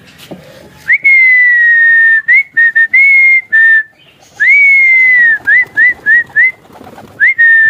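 A person whistling loud, high calls to bring pigeons in to land: long notes that swoop up and then slowly fall, mixed with runs of short rising chirps.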